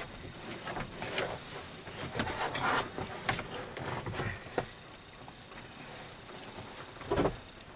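Hands pressing and sliding over vinyl plank flooring held against a wall: scattered light scuffs, rustles and taps, a sharp click about halfway through and a short, louder thump near the end.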